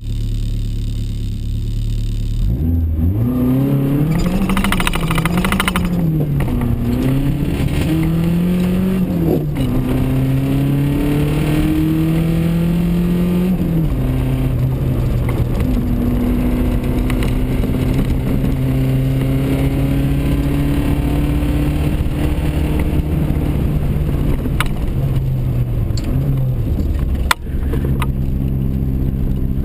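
SAAB 99 Turbo's turbocharged four-cylinder engine, heard inside the cabin: a steady low hum, then from about two and a half seconds in it revs up and pulls through the gears, its pitch climbing during each pull and dropping at each upshift. A sharp knock about two seconds before the end briefly cuts the sound.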